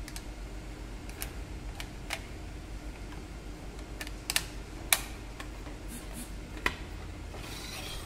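Scattered sharp plastic-and-metal clicks and taps of a desktop motherboard being handled and set down on a wooden workbench, with three louder clicks in the second half.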